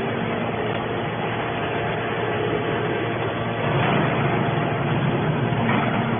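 Steady mechanical running noise of a can baling machine, swelling slightly a few seconds in.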